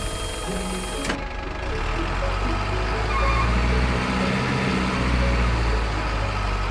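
Background music for about a second, cut off abruptly, followed by a truck's diesel engine sound running with a steady low rumble.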